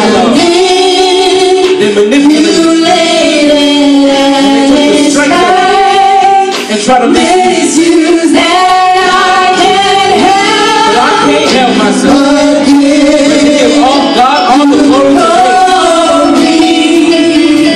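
Gospel vocal group singing a song in harmony through handheld microphones, with women's voices leading and a man's voice among them.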